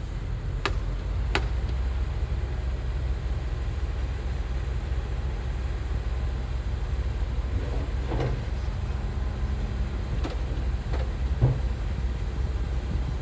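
Heavy earthmoving machine's engine running steadily with a low rumble, with a few short knocks, the loudest about three-quarters of the way through.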